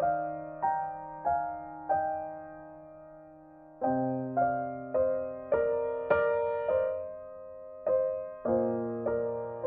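Slow, gentle solo piano background music: single notes and chords struck one after another, each ringing and fading, with a brief pause about three seconds in.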